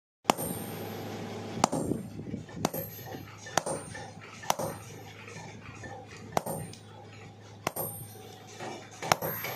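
Sharp ringing metal clangs, about one a second, typical of metal being struck in cutlery making, over a steady low machine hum.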